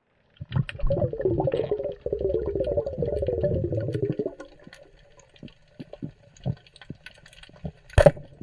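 Water bubbling and gurgling for about four seconds, then a few faint scattered clicks and one sharp click near the end.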